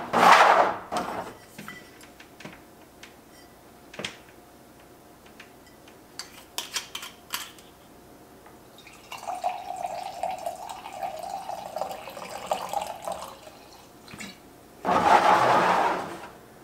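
White wine poured from a bottle into an empty wine glass: a few seconds of running, gurgling liquid about halfway through, after a few light clicks. Louder handling noises come in the first second and again near the end.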